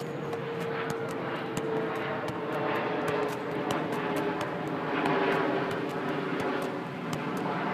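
An aircraft flying over, a steady engine drone whose pitch falls slowly, loudest about five seconds in.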